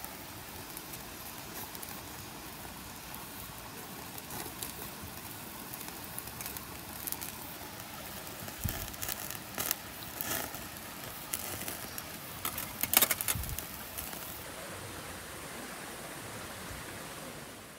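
Steady hiss of a portable gas stove burner and beef sizzling on a wire grill, with scattered sharp clicks of metal tongs against the grill, a louder cluster of clicks about two-thirds of the way through.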